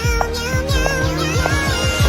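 Background music: an electronic pop track with a steady beat and a wavering, sung-like melody line.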